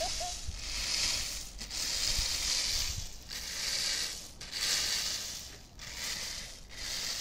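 Wooden rake dragged through a layer of in-shell hazelnuts on a plastic tarp, the nuts rattling and tumbling with each stroke, about one stroke a second, as they are turned to dry.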